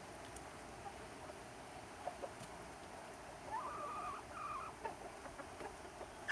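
Chickens vocalising softly; about three and a half seconds in, one chicken gives a drawn-out two-part call lasting about a second, with faint scattered ticks around it.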